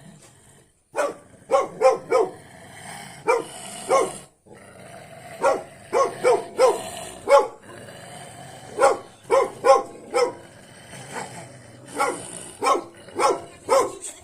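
A dog barking over and over in quick bursts of two to four barks, after about a second of quiet.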